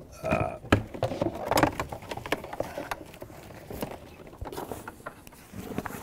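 Rummaging through a bag: an irregular string of clicks, knocks and rustles as objects are handled and shifted about.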